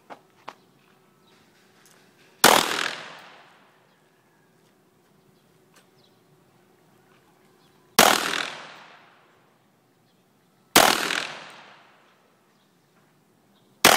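Handgun fired in single shots, four in all, spaced several seconds apart with the last right at the end. Each sharp crack trails off in an echo lasting about a second and a half. Two faint clicks come just after the start.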